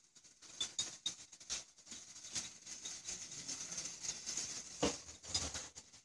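Steam bubbling through water in a glass mason-jar thumper on a copper moonshine still, during a test run with plain water: a steady hiss with irregular small pops and gurgles, and one louder pop near the end.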